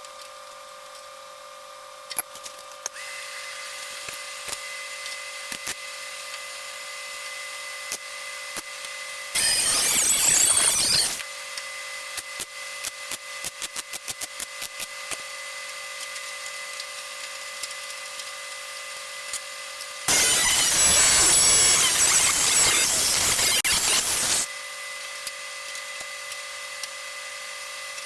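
An electric power tool working the car's sheet-metal patch area in two loud bursts, one of about two seconds roughly nine seconds in and a longer one of about four seconds near twenty seconds in. A run of light rapid clicks follows the first burst, over a steady shop hum.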